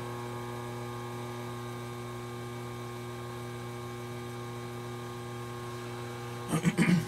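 Steady electrical mains hum, with a short cluster of sharp knocks or clatter near the end.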